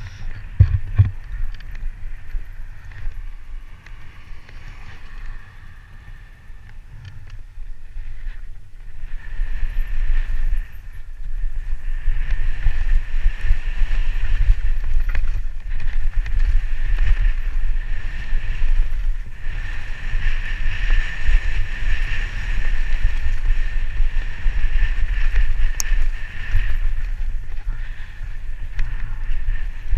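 Wind buffeting a helmet-mounted camera's microphone during a fast mountain-bike descent, mixed with the tyres running over a dirt trail. It gets clearly louder about twelve seconds in.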